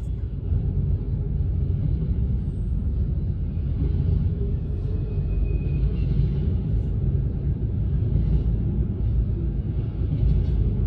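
CSX double-stack intermodal freight train rolling past a grade crossing: a steady, low rumble of wheels and well cars on the rails.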